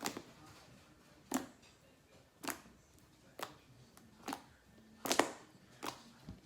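Shaving-foam iceberg slime being squeezed and pressed by hand for a clicking test, giving about eight sharp clicking pops, roughly one a second.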